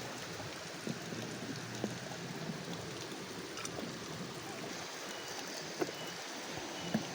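Small river flowing steadily, with a few faint knocks and clicks now and then.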